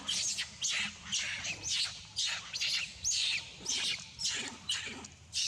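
A monkey's shrill squealing calls, about two a second, each falling in pitch.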